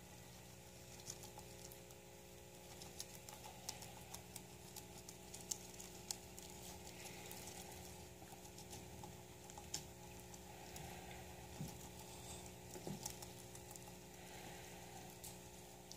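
A guinea pig munching leafy greens: faint, irregular crunching clicks. A steady low hum sits underneath.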